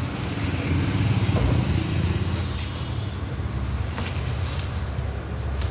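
Plastic stretch wrap rustling and crinkling as it is pulled off a car headlight, over the steady low hum of a running engine, with a sharp click about four seconds in.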